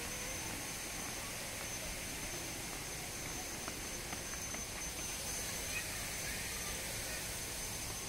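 Steady background hiss with a thin, high, unchanging tone running through it, and faint distant voices.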